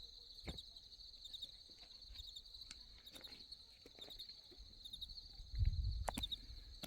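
Insects chirping steadily in a fast pulsing trill, with scattered clicks and knocks and a louder low rumble at about five and a half seconds.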